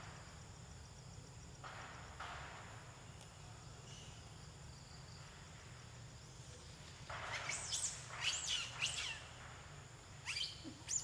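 High, sweeping chirping calls in a cluster of several, starting about seven seconds in and lasting about two seconds, with a shorter group near the end, over a steady low background hum.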